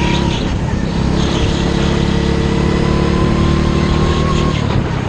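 Go-kart engine running hard on a lap, its pitch climbing slowly as it accelerates, then dropping near the end.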